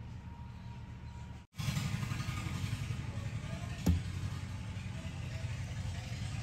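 Rainy-day ambience: a steady low rumble under a hiss of rain. It cuts out briefly about a second and a half in, then returns a little louder, with a single sharp knock near the middle.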